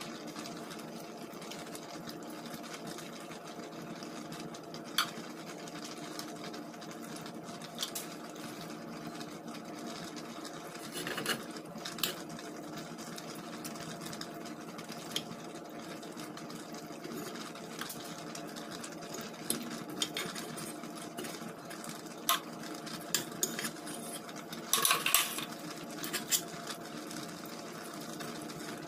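A metal utensil stirring wet fish and tomato sauce in a pot, with scattered scrapes and clinks against the pot and a louder cluster of clatter near the end. A steady low hum runs underneath.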